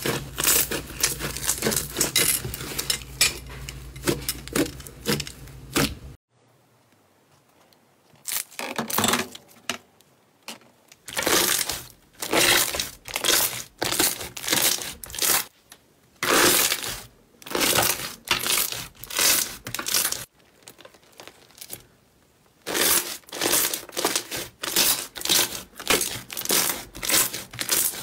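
Hands squeezing and pressing slime, giving dense, crinkly crackling. After a quiet pause of a few seconds, fluffy white slime is poked and pressed in a long run of short crackling squishes, several a second.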